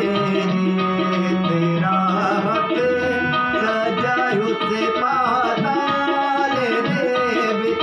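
A man singing an Urdu devotional song to his own harmonium: the reeds hold steady chords while the voice slides and ornaments its notes, with the longest glides about two and five seconds in.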